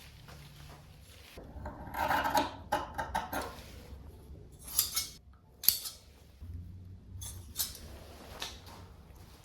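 Scissors cutting fiberglass cloth: a cluster of crunchy cutting sounds, then several separate sharp snips.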